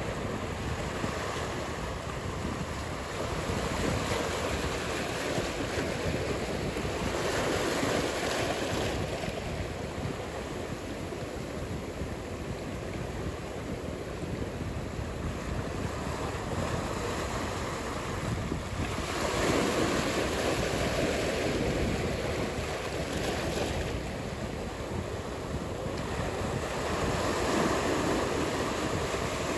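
Ocean surf: waves breaking and washing in, a steady rushing wash that swells louder every several seconds, with some wind.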